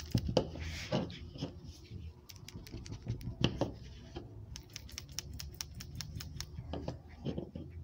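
A PCV valve from a Hyundai Grand i10 shaken by hand, its internal check plunger rattling in quick, light, irregular clicks. The rattle is the sign that the plunger moves freely; a valve that stays silent needs replacing.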